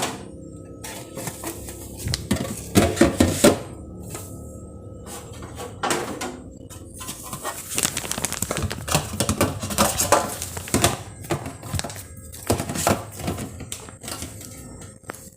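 Containers, dishes and fridge parts knocking and clattering as a refrigerator is emptied and organized, in bursts of handling. Background music plays under it.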